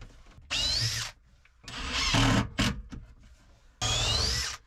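Cordless impact driver driving screws into wood in three bursts, its motor whine rising as it spins up; the middle burst is the loudest.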